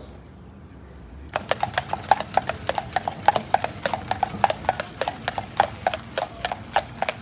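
Carriage horses' hooves clip-clopping on a paved road as a horse-drawn carriage passes, a quick, even run of sharp hoofbeats that starts about a second in.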